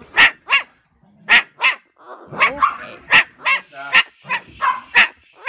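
Repeated sharp barks, mostly in quick pairs about once a second, with a denser run of yelping calls in the middle.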